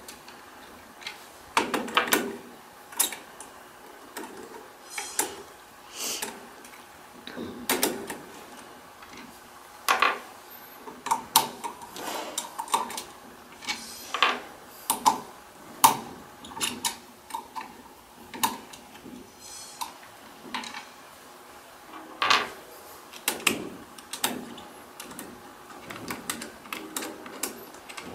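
Irregular small clicks and knocks as an Allen key turns out the screws of a Braillo embosser's plastic pin guide, with the loose metal screws tapped down onto a wooden workbench.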